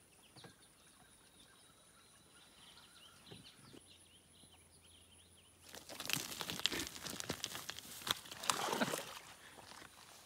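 Quiet outdoor ambience with faint high bird chirps. About six seconds in, a loud stretch of dense crackling and scraping clicks begins and runs for some three and a half seconds before it dies down.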